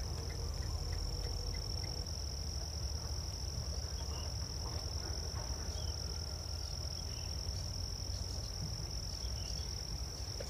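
Crickets trilling in one steady, unbroken high-pitched tone, over a low rumble, with a few faint short chirps.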